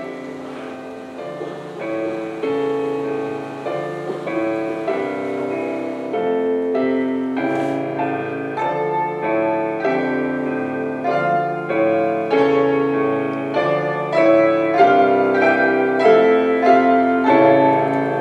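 Piano music playing a repeating figure of notes and chords, growing louder in the second half.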